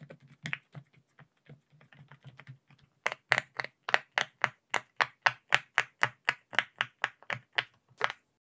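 Silicone pop-it fidget toy bubbles being pressed, each giving a sharp pop: soft and scattered at first, then about three seconds in a louder, steady run of about four pops a second that stops near the end.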